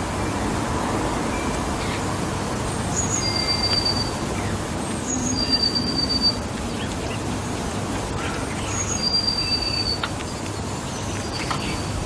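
Steady low rumble of distant traffic, with a songbird repeating a high, level whistled note about three times, each with a short higher note just before it.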